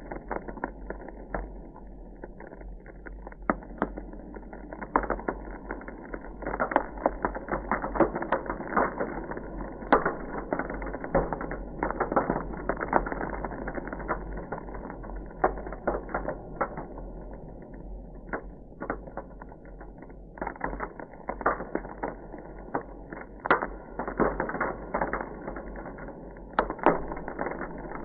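Ice crackling: a dense, irregular run of crackles and sharp snaps, with a steady low rumble underneath.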